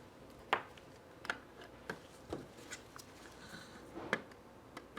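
Scattered light clicks and taps of small parts of a die-cast Tonka mini dump truck being handled as its wheels are fitted, about seven separate ticks, the first the loudest.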